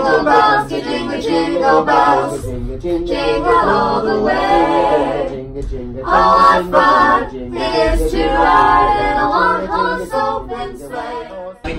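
Voices singing a cappella, mostly female, with long held notes. The singing cuts off just before the end.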